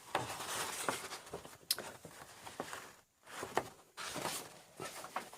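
Paper target sheets being handled and shuffled: rustling with scattered light taps and clicks, one sharper click a little under two seconds in.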